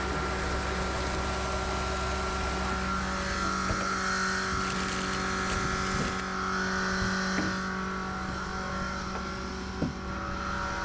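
A truck engine running steadily with an even drone, with a few light clicks near the end.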